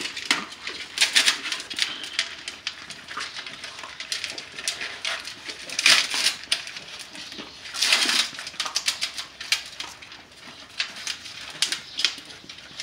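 Bully puppies crunching hard, unsoftened dry kibble from a shared bowl: a quick, irregular clatter of chewing and kibble clicking, with louder flurries about a second in, around six seconds and around eight seconds.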